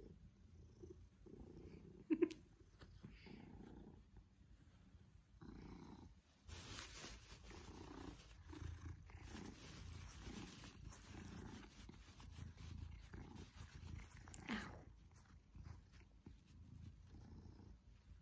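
Maine Coon cat purring steadily, a low pulsing purr close to the microphone. A short sharp click cuts in about two seconds in.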